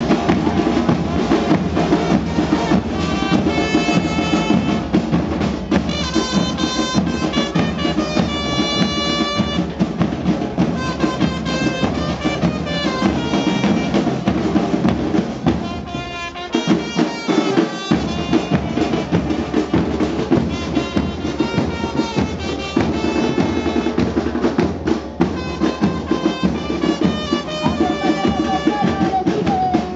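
Argentine murga band playing in the street: bass drums (bombos) beating a dense, driving rhythm with a trumpet playing melody lines over it. The low drums drop out briefly about halfway through, then come back in.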